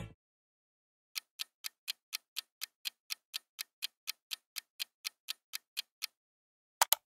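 Countdown timer sound effect: a clock ticking quietly, about four ticks a second for some five seconds, then two sharper clicks close together near the end.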